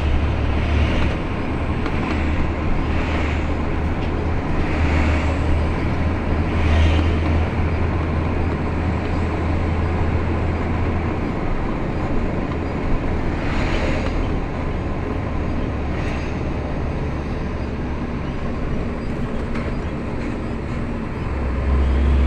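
Road traffic in a slow-moving queue: a steady low engine rumble under continuous road noise, with brief swells every few seconds.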